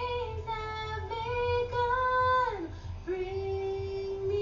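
Song: a high female voice singing long, held wordless notes over music, the pitch sliding down about two and a half seconds in before settling on a lower note.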